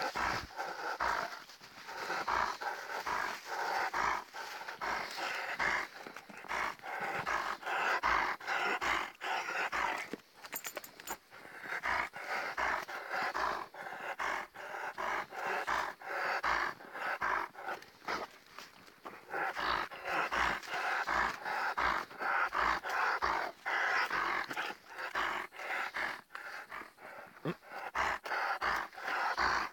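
Alaskan Malamute panting rapidly close by, in long runs of quick breaths with a couple of short pauses, over the regular thud of footsteps in snow.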